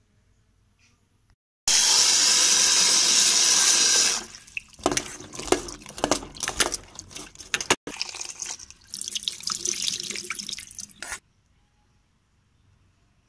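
Tap water running steadily into a steel bowl for a couple of seconds. Then hands swish and splash sliced pointed gourd around in the water, with small clinks against the bowl, stopping near the end.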